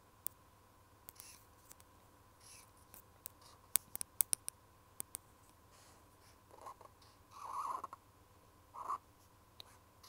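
A pen scratching across paper in short drawing strokes, with scattered sharp taps and clicks. The longest, loudest stroke comes about three quarters of the way in.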